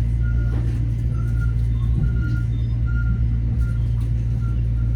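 Metro-North M7A electric train running between stations, heard from inside the car: a steady low hum and rumble, with faint brief high-pitched tones coming and going every second or so.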